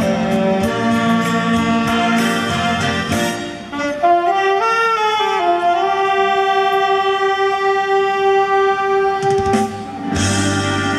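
Saxophones playing a slow melody over a recorded backing track with a steady beat from a PA speaker. The closing phrase glides into one long held note that stops about nine and a half seconds in.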